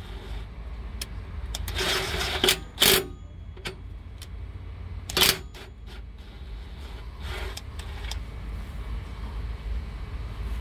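Cordless electric driver running in a few short bursts, with clicks and rattles between, as it winds a greased thread-repair tap in and out to re-cut the damaged NOx sensor thread in the exhaust pipe.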